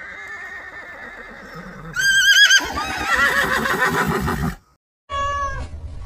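A horse whinnying, loudest with a quavering pitch about two seconds in, then cutting off. After a brief silence a cat's meow begins near the end.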